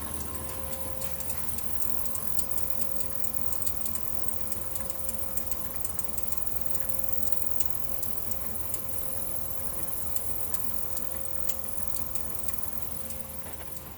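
Landice L8 treadmill running: a steady motor hum with a faint whine, overlaid by frequent light, irregular clicks. This is the unwanted noise the machine is making.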